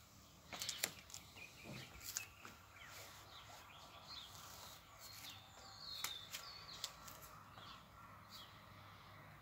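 Faint outdoor ambience with birds chirping: short scattered chirps, a warbling call about six seconds in, and a few sharp clicks over a low steady hum.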